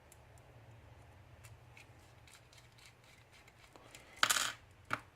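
Small metal parts and tools being handled on a workbench: a few faint ticks, then a short scraping rasp about four seconds in and a briefer one near the end, over a faint steady hum.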